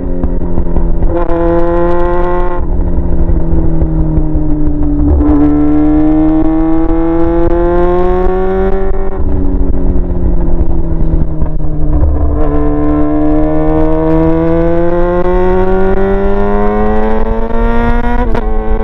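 Yamaha R6's 600 cc inline-four running loud with no muffler (straight pipe) while being ridden: the engine note climbs slowly under acceleration, then drops abruptly at each of several gear changes.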